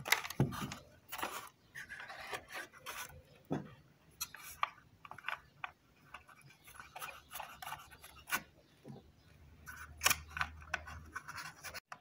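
Irregular scraping, rubbing and small clicks of hands working on an Oster blender's open plastic base and motor, as the motor is seated on its rubber shock mounts and its screws are driven in.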